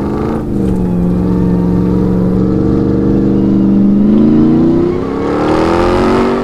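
Ram 1500 TRX's supercharged 6.2-litre V8 running hard off-road, holding a steady note for a few seconds, then dipping briefly and rising in pitch as it revs up near the end.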